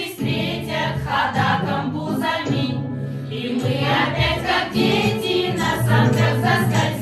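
A vocal ensemble singing a song as a choir, several voices together over sustained low notes.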